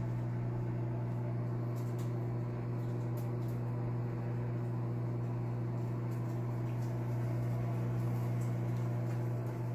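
Over-the-range microwave oven running mid-cycle while heating food: a steady, unchanging hum with a strong low drone.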